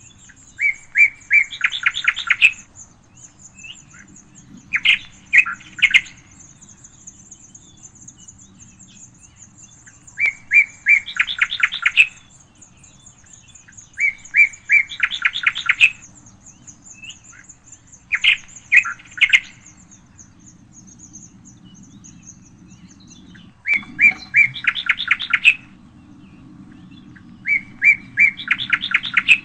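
A songbird repeating a short song about every four seconds, each phrase a few separate notes running into a fast trill. A thin, very high continuous trill sounds behind it and fades out about two-thirds of the way through.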